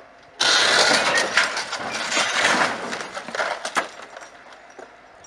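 A car hoisted by a truck-mounted crane comes crashing down onto the road, a sudden loud crunching and scraping of metal with scattered sharp cracks. It starts about half a second in and dies away over some three seconds.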